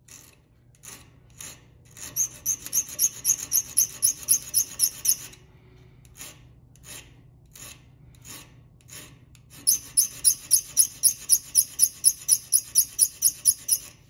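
Small hand file rasping back and forth on the steel of a Leatherman Wave multitool, fitting its liner lock. A few slow strokes, then a run of quick strokes about four a second; then a few slower strokes, and a second quick run near the end.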